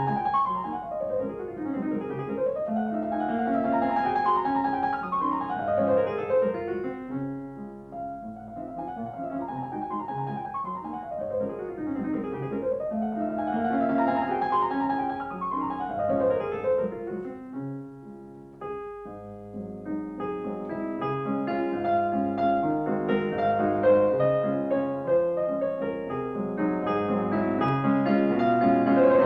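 Background piano music: flowing arpeggios sweeping down and up in repeating phrases, with fuller chords from about two-thirds of the way in.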